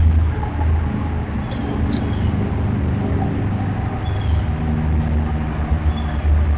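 Steady low rumble of vehicle traffic, with a few faint, brief high bird chirps.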